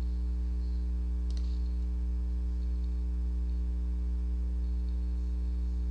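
Steady electrical mains hum with several low tones in the recording, and one faint click about a second and a half in.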